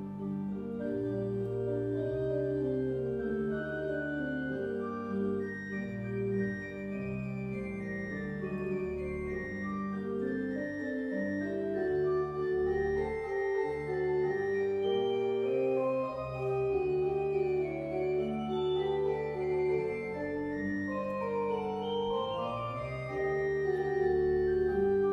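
Church organ playing alone: a slow Baroque passage of held notes in several voices over a moving bass line.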